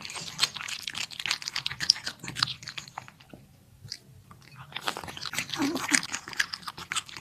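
Ragdoll cat biting and crunching through crunchy food, in quick crackling chews, with a pause of about a second and a half midway.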